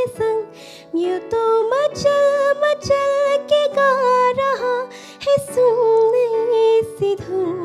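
A young woman singing a slow song into a microphone, holding long notes that slide between pitches, over sustained electronic keyboard chords.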